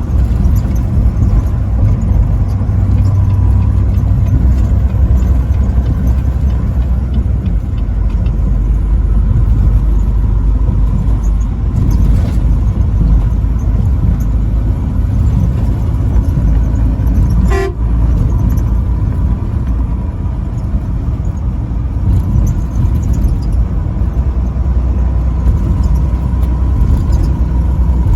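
Truck driving at highway speed, with a steady low engine and road rumble throughout and a brief sharp click about two-thirds of the way through.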